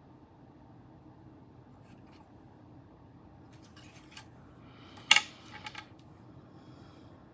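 A small hard tool set down on the worktop: a single sharp clink that rings briefly, about five seconds in. A few light taps and clicks come just before and after it.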